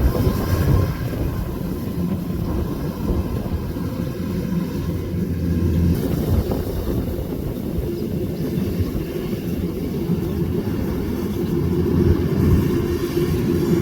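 Kubota DC105X combine harvester running steadily under load while harvesting rice: a continuous low engine and machinery drone, with a steadier hum coming up in the last few seconds.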